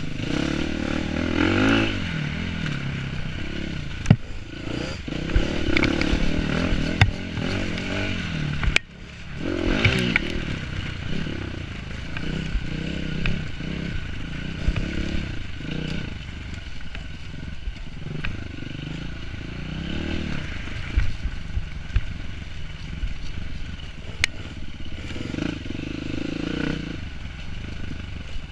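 Enduro dirt bike engine revving up and dropping back again and again while ridden hard over rough ground, with scattered knocks and clatter from the bike.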